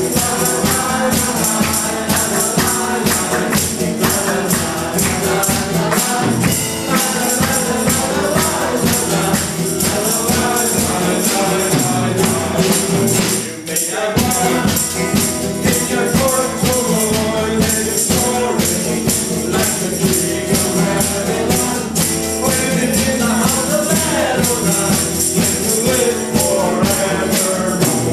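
Live worship song: several voices singing together with an acoustic guitar and a drum kit, and jingling percussion. The music drops away briefly about halfway through, then carries on.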